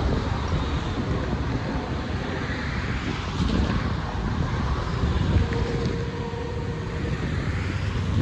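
Wind buffeting the microphone over a steady low rumble, with a faint held tone for about a second and a half past the middle.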